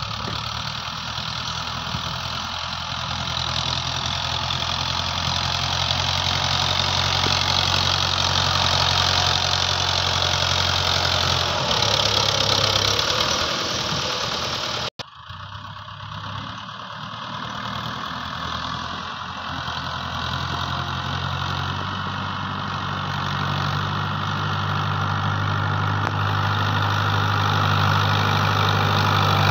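New Holland tractor's diesel engine running under load as it pushes sand with its front blade. It grows louder as it draws near, and its note steps up and down a few times.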